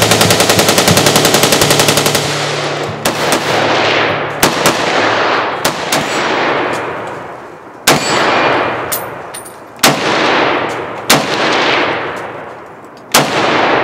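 A rapid burst of bump-fire from an AR-15 rifle with a SlideFire stock, many shots a second for about two seconds, followed by a string of single semi-automatic rifle shots one to two seconds apart, each ringing out and echoing.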